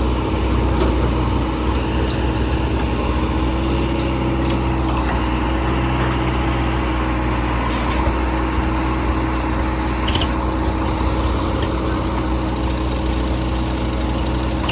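Heavy diesel machinery, a backhoe loader with tractors, running steadily: a constant engine hum with a steady tone above it and a few faint clinks now and then.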